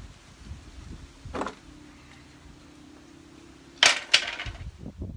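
Metal knocks and clanks of a steel license plate relocation bracket being fitted onto a Jeep Wrangler's spare tire carrier: a knock about a second and a half in, then two sharp clanks in quick succession near the end, over a low steady hum.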